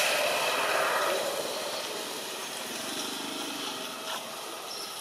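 Steady outdoor background hiss, louder for about the first second, with one faint click about four seconds in.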